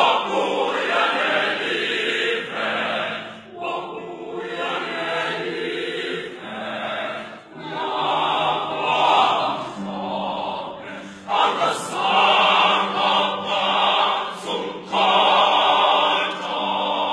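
Large mixed choir of women's and men's voices singing in harmony, in sung phrases broken by short pauses for breath.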